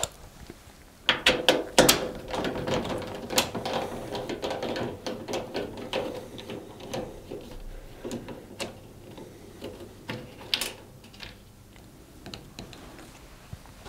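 Screwdriver undoing the screws at the back of a washing machine's top panel: clicks and scraping as the screws turn, busiest in the first half, then a few scattered clicks.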